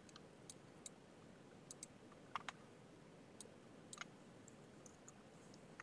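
Faint, scattered clicks of a computer mouse and keyboard, about a dozen, with a quick pair around halfway through, over near-silent room tone.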